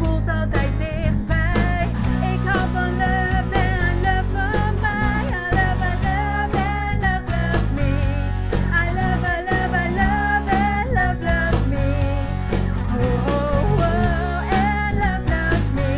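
A rock song: a woman's lead vocal, sung with vibrato, over guitar, bass and drums with a steady beat.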